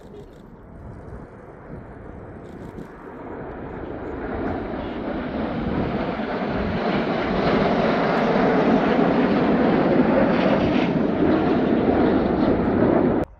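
Jet engines of a Red Arrows formation of BAE Hawk T1 jets passing, a broad roar that grows steadily louder over several seconds and then cuts off suddenly near the end.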